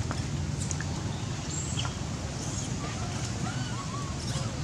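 Outdoor ambience: scattered short, high animal chirps and squeaks over a steady low hum.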